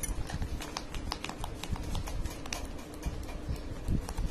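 A pen writing on a sheet of paper: irregular small taps and short scratches of the tip against the page.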